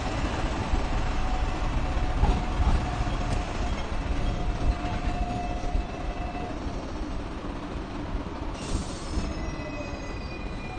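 Hong Kong double-decker tram running along its street tracks, heard from inside: a steady rumble with the steel wheels squealing thinly on the rails, longest from about two to six seconds in and again near the end. A short hiss comes about three-quarters of the way through.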